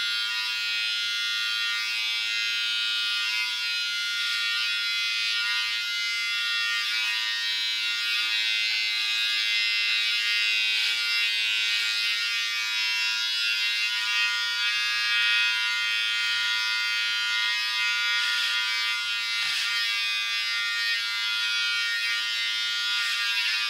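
Panasonic ER1411 electric hair clipper running with a steady buzz as it trims short hair at the side of the head.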